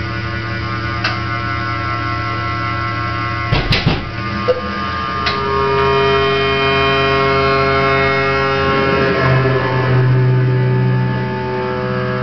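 Analog modular synthesizer droning: many steady held tones over a strong low hum. A few sharp clicks come near the start and a cluster of crackles about four seconds in, and around nine seconds the tones shift and a low tone swells.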